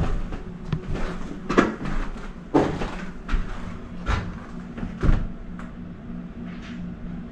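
Several dull knocks and thuds, roughly one a second, fading out after about five seconds, over a steady low hum.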